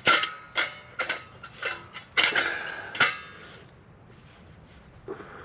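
Metal backpacking wood stove and pot parts clinking and clanking together as they are handled and fitted, about eight ringing metal knocks in the first three seconds, then quieter handling.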